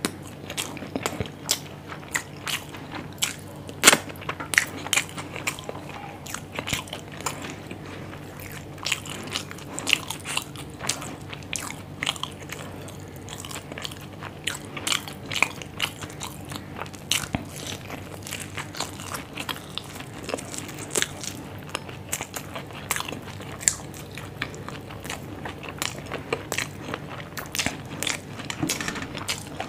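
Close-miked eating by hand: wet chewing and biting with frequent sharp crunches and crackles, from saucy Indo-Chinese dishes and a deep-fried momo.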